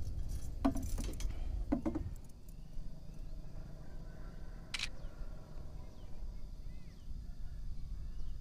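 Low wind rumble on the microphone, with a few short knocks in the first two seconds and one sharp click about five seconds in: a phone camera's shutter taking a photo.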